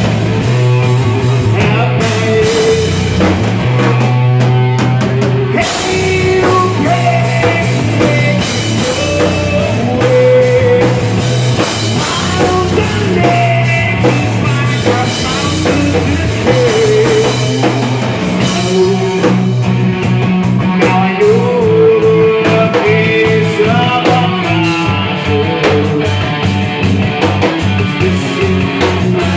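Rock band playing live and loud: electric guitar through Marshall amps, a drum kit, and a singer over them.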